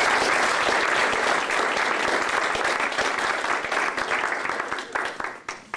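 Audience applauding, many hands clapping together, tapering off to a few last claps near the end.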